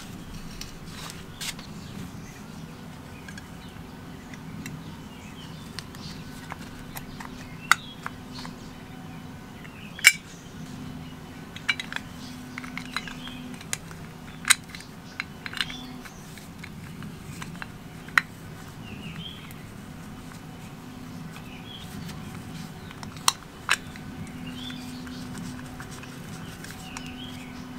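Scattered sharp clicks and light taps of small metal and plastic parts as gloved hands fit the white ignition points cover onto a small engine's crankcase. A steady low hum runs underneath.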